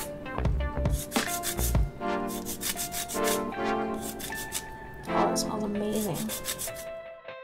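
Lime zest being grated on a Microplane rasp grater: repeated scraping strokes of the peel across the fine blades, stopping shortly before the end.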